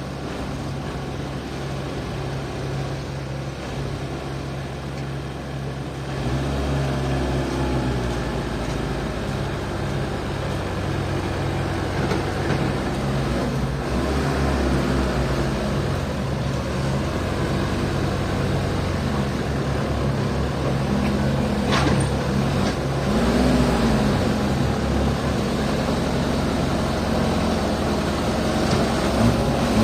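Excavator engine running, its revs rising and falling several times as it pushes a sunken dump truck. A single sharp knock comes about 22 seconds in.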